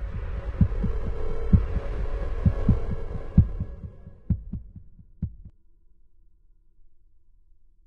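Trailer sound design: a dark low drone with a series of deep thumps, some coming in close pairs like a heartbeat. It fades away over about five seconds, leaving only a faint low hum.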